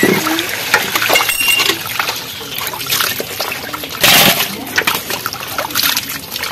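Water sloshing and splashing in a steel bowl as small fish are washed by hand, the hands stirring and scooping through them, with a louder splash about four seconds in.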